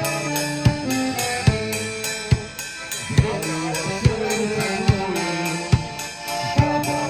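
Live band music without singing: a steady drum-kit beat, a little under one strong kick-and-snare stroke a second with faster cymbal ticks between, under held melody notes that change pitch every second or so.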